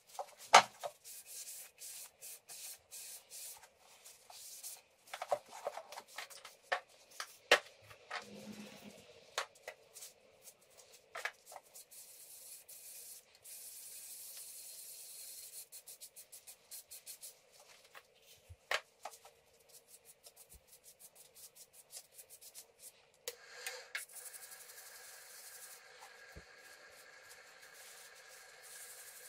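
Hand rubbing on a box elder wood bowl: irregular scraping strokes with scattered light clicks and knocks, and a steadier stretch of rubbing around the middle.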